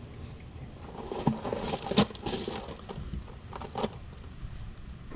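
Small metal parts and tools clinking and scraping in a cluster of short rattles, loudest about two seconds in, while brake pad hardware is being fitted.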